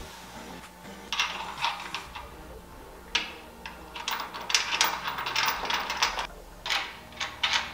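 Small metal hardware clicking and scraping in irregular bursts as nuts and washers are fitted by hand onto the bolts through a portable basketball hoop's backboard.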